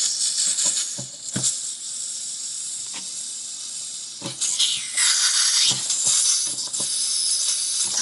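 Gas hissing out of a Zaima tall butane lighter's filler valve as a pin holds the valve open, purging trapped air and butane from the tank. The hiss gets louder about five seconds in, with a few light clicks along the way.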